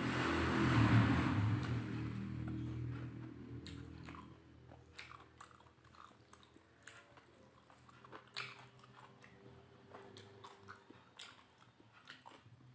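Close-miked biting and chewing of a meal of beef rendang, rice and raw vegetables. It is louder for the first three or four seconds, then settles into quieter chewing with scattered wet mouth clicks.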